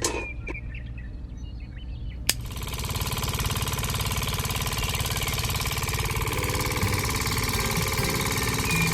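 Small engine of a DIY mini tractor running low, then after a sharp click about two seconds in it runs much louder with a dense mechanical rattle.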